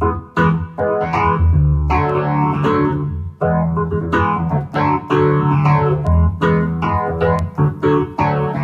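Instrumental music: plucked guitar notes in a quick repeating pattern over a steady low bass.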